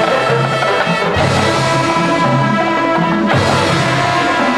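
Marching band playing: brass sustain loud chords over bass drum and cymbals. A new accented chord comes in about a second in and another a little past three seconds.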